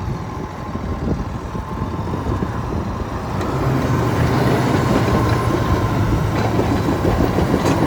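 Diesel engine of a Komatsu D65EX-17 bulldozer running, getting louder with a steady low hum about three and a half seconds in.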